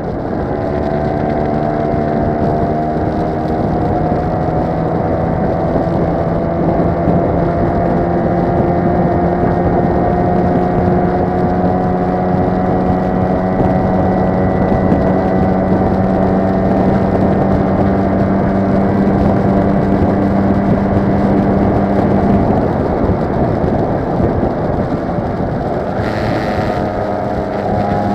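Motor scooter engine running steadily on the move, with wind and road rumble. Its note climbs slowly, then changes about twenty-two seconds in.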